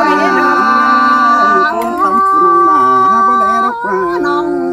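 A group of women and men singing a Thái folk farewell song together without instruments, holding long drawn-out notes that move to a new pitch about two seconds in.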